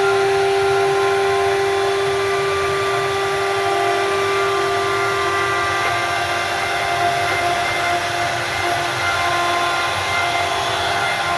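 CNC router spindle running loudly while cutting wood: a steady whine with several higher tones above it, over a continuous hiss.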